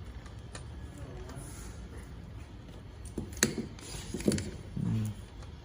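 Handling of the DVR kit's cables and connectors: a few sharp plastic clicks and knocks, the two loudest about three and a half and four and a quarter seconds in, over a low steady background hum.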